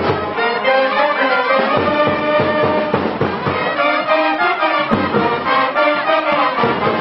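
Brass band music, trumpets and trombones playing a lively tune with a steady beat.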